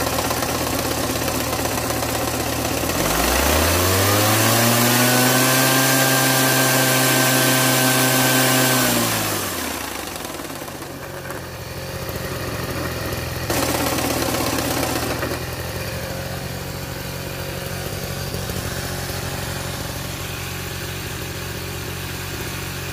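Two-stroke engine of a large Ochiai engine hedge trimmer idling, then throttled up about three seconds in: the pitch rises and holds at high revs for about six seconds before dropping back to idle. A shorter, louder burst follows around fourteen seconds in, then the engine idles steadily again.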